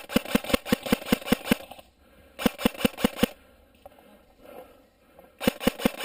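An Ares Amoeba 007 airsoft electric rifle firing three strings of rapid shots, about seven a second, with short pauses between the strings.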